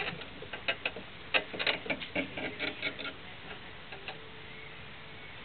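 Irregular clicking and tapping from a kelpie running on an exercise wheel. The clicks come thick and fast, thin out about three seconds in, and one last click comes about four seconds in.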